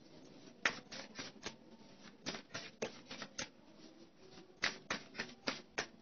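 Tarot cards being shuffled and handled: about a dozen short, sharp card snaps and taps in irregular clusters.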